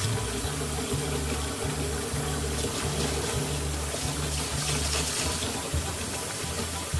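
Kitchen tap running steadily into a plastic bowl of glutinous rice in a stainless steel sink, while a hand swishes the rice through the water to rinse it.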